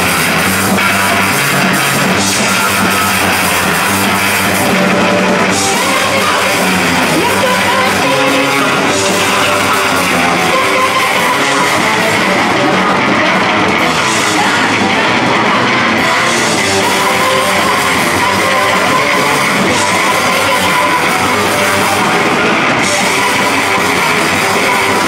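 Loud live rock band playing: electric guitar, bass and drum kit, with a woman singing at times.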